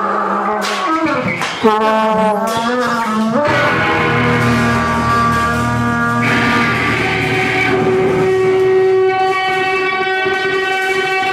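Live noise music: stacked, droning amplified tones. There is a sharp crack about a second and a half in, and wavering pitch glides end in a rising sweep around three seconds. After that comes a thick, sustained drone.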